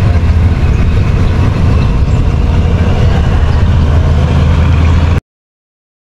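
Heavy diesel railway engine running steadily with a deep, loud hum, cutting off suddenly about five seconds in.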